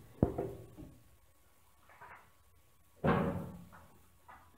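Two sharp knocks of metal parts being handled at a lathe, about three seconds apart, each dying away briefly, with a few faint small knocks between them.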